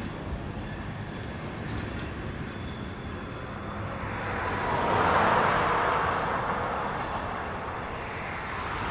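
Freight train rolling past over the rails with a steady low rumble, mixed with cars going by on the road; a rushing sound swells to its loudest about five seconds in and fades, and another rises near the end.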